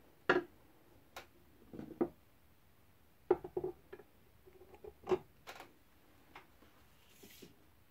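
Steel bayonets, among them a socket spike bayonet, being picked up and moved off a wooden tabletop: a series of irregular clicks and knocks, the loudest about a third of a second in, near three and a half seconds and near five seconds.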